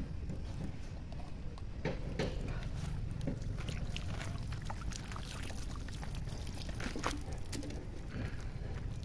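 Water poured from a plastic bottle, splashing over a fish being rinsed and rubbed by hand, with scattered small clicks and rustles of handling on leaves, over a steady low rumble.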